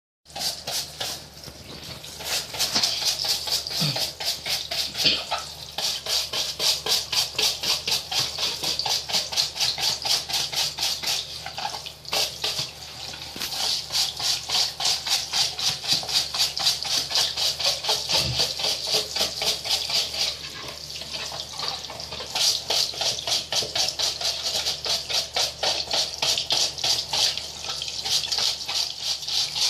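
Rapid rhythmic scrubbing on a grimy drum washing machine, about five quick rasping strokes a second. It pauses briefly twice.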